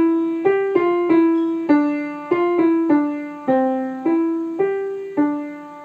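Piano playing a simple melody one note at a time in the middle register, at a steady moderate tempo. Each note is struck and left to ring and fade, and the last one rings on near the end.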